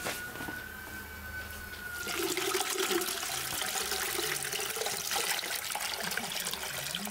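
Water poured in a steady stream from a metal jug into a samovar, splashing around its central chimney as the body fills. The pour starts about two seconds in.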